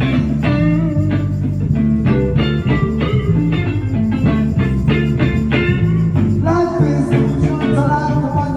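Live band playing a guitar-led blues-rock number, with a rhythmic plucked guitar part over bass guitar; a sung or lead melody line comes in near the end.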